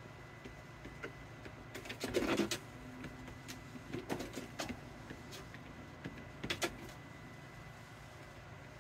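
GUDNYCE walking-pad treadmill running, its motor giving a steady low hum with a faint high whine. Over it come clusters of scuffs and taps from a cat's paws on the moving belt, loudest about two seconds in, with more around four and six and a half seconds.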